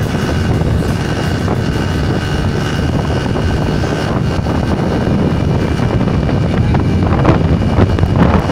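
Motorcycle running at steady road speed, its engine drone mixed with wind rushing over the microphone.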